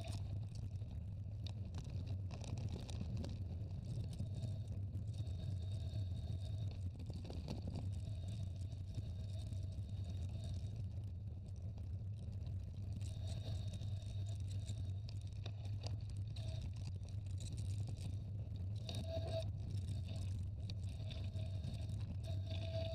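Mountain bike rolling down a dirt and gravel trail: a steady low wind rumble on the microphone over tyre noise, with a faint squeal that comes and goes.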